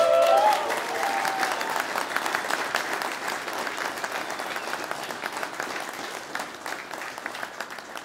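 Wedding guests applauding, with a few voices calling out at the start, giving their blessing to the couple. The clapping is loudest at first and gradually dies down.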